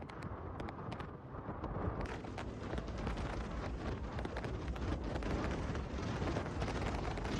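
Hurricane-force wind buffeting the microphone in a steady, heavy rumble, with many small clicks and knocks running through it, such as rain or debris striking.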